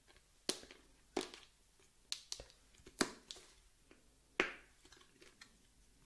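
Close-miked hand sounds while aftershave balm is being applied: a string of sharp clicks and crackly snaps, about seven, spaced irregularly.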